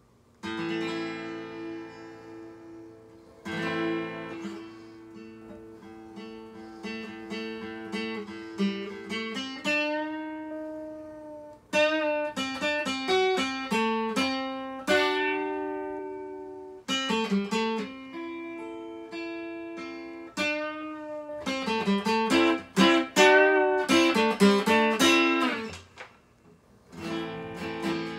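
Solo acoustic guitar playing an instrumental intro: strummed chords and picked single notes ringing out. The strumming grows busier in the second half, stops briefly about two seconds before the end, then starts again.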